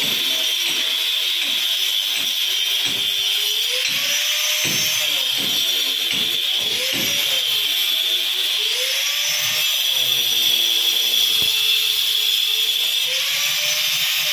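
Handheld electric cutter with a masonry blade cutting a groove into a brick wall for electrical conduit. The motor runs steadily with a high whine, its pitch dipping and recovering every two seconds or so as the blade is pressed into the brick and eased off.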